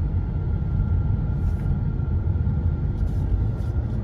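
Car cabin noise while driving slowly: a steady low engine and road rumble.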